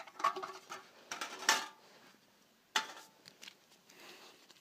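A metal Pokémon card tin being handled and opened: a few clinks and scrapes of the tin lid, loudest about a second and a half in and again near the three-second mark.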